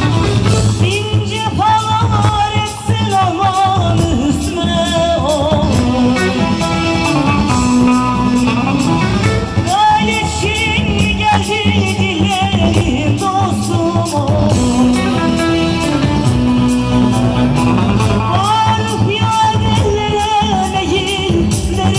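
A woman sings live into a microphone, her melody wavering with vibrato, over loud amplified accompaniment with a steady bass and an even beat, all heard through the PA loudspeakers.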